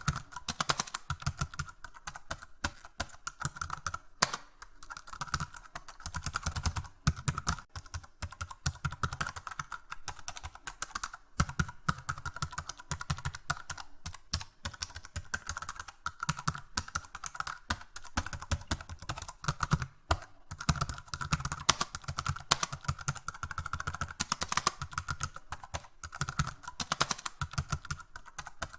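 Typing on a computer keyboard: a fast, uneven stream of key clicks with no long pauses.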